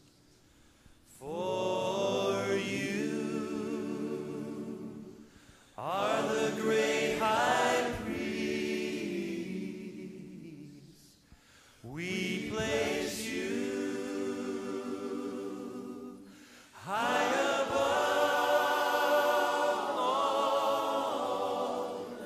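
A choir singing a slow worship song in four long held phrases, with short breaks between them.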